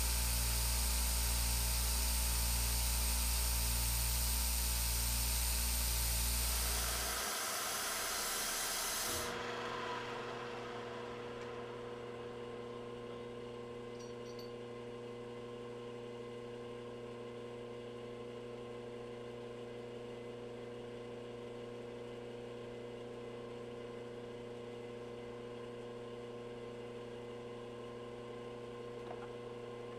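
CNC milling machine's end mill cutting, with a loud hiss of spray over the spindle. The cutting and hiss stop about seven to nine seconds in, leaving a steady electrical hum from the machine.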